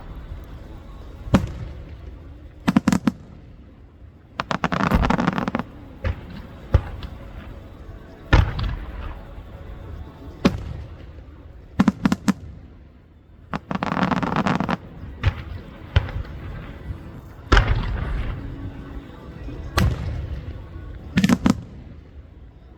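Aerial fireworks: shell bursts banging every second or two, some in quick clusters of two or three, with three stretches of dense crackling lasting about a second each.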